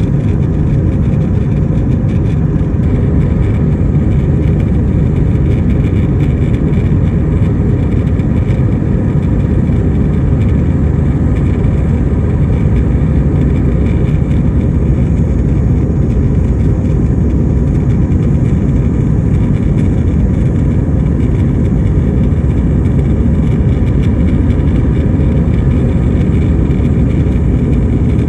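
Airliner cabin noise in flight: a loud, steady low rumble of jet engines and rushing air that does not change.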